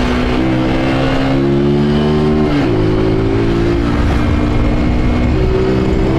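Honda CG Titan 150's carbureted single-cylinder four-stroke engine, running with its air-intake hose removed, pulling under throttle. Its pitch climbs steadily, drops sharply about two and a half seconds in, then holds and rises a little again near the end.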